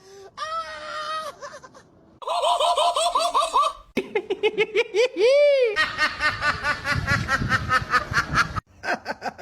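Human laughter in several separate bursts, with a fast pulsing run of laughs in the second half. About five seconds in there is one pitched glide that rises and then falls.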